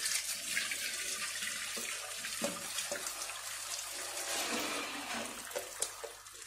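Hot starchy water and par-boiled seeraga samba rice poured from a pan into a perforated aluminium colander: a steady gushing splash of water draining through the strainer that thins out near the end, with a few light knocks. This is the rice's starch water (kanji) being drained off.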